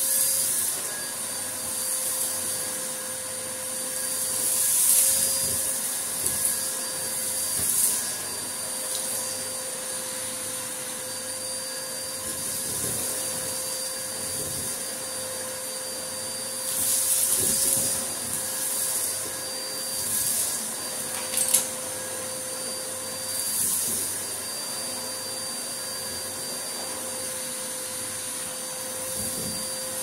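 Numatic James cylinder vacuum cleaner running steadily with a constant motor whine, its 160 floor tool sucking sand and fluff off a carpet. Bursts of hissing rattle come every few seconds as grit is drawn up the wand, with one sharp clack about two-thirds of the way through.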